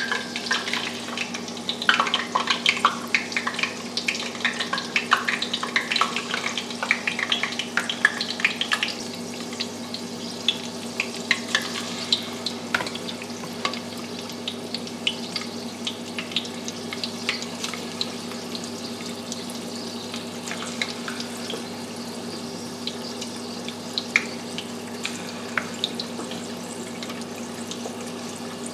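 Battered chicken wings deep-frying in hot peanut oil: a crackling sizzle with many sharp pops, busiest in the first nine seconds or so, then settling into a steadier hiss with occasional pops.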